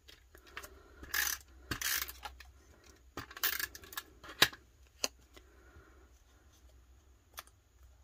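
Tape runner dragged across the back of a paper cutout in a few short scraping strokes, then a sharp click about four and a half seconds in and a smaller one soon after.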